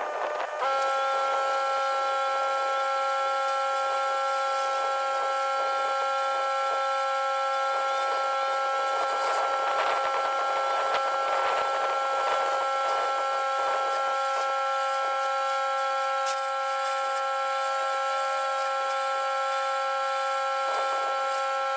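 Pressure washer running steadily while surface cleaning a driveway, heard as a constant high whine.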